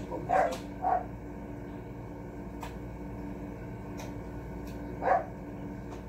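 Three short calls from a household pet: two close together in the first second and one about five seconds in. Beneath them runs a steady low hum.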